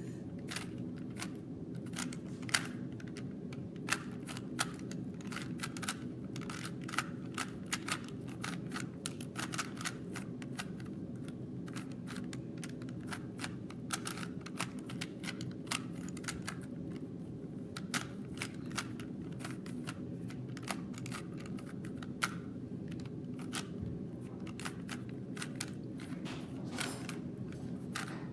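Plastic clicking and clacking of a 3x3 Rubik's cube being turned fast by hand during a speed solve, several turns a second at an uneven pace, over a steady low hum.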